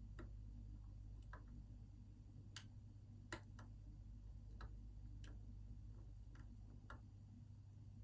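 Small, sharp, irregular clicks of a lock pick and tension wrench working the pins inside an Assa Twin 6000 pin-tumbler lock, about a dozen in all, the loudest a little before the middle, over a faint steady low hum.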